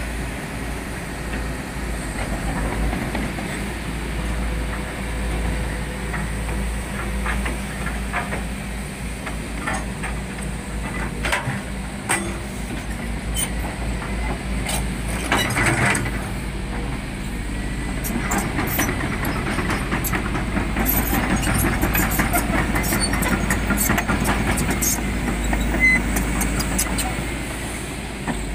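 Volvo EC210D crawler excavator's diesel engine running steadily, with scattered metallic clicks and clanks.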